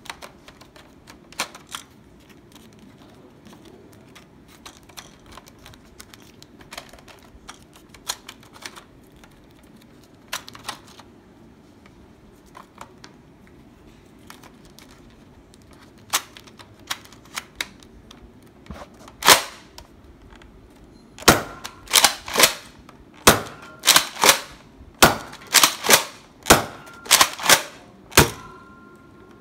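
Nerf Ultra 5 dart blaster: light scattered plastic clicks of handling and loading, then one loud snap about two-thirds through, followed by a quick run of about a dozen loud sharp snaps as it is primed and fired again and again.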